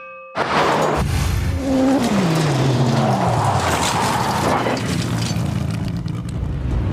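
A sudden heavy crash and rumble, as of rocks dumped from a wheel loader's bucket into a pickup bed. Dense heavy-engine and machinery noise follows, with a deep tone that drops in pitch about two seconds in.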